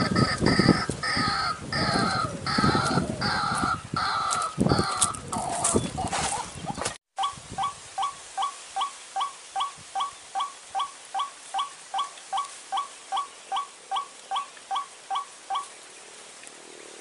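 White-breasted waterhen calling: first a series of harsh, croaking calls at about two a second over low rumbling noise, then, after an abrupt cut, a steady run of short identical notes at nearly three a second that stops near the end.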